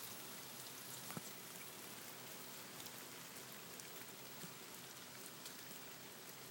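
Steady rain falling, an even hiss with scattered drops ticking, one sharper drip about a second in.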